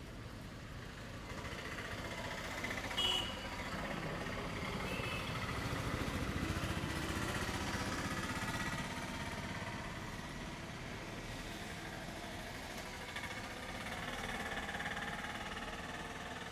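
A motor vehicle engine running nearby, building up over several seconds and then easing off. A brief high chirp sounds about three seconds in.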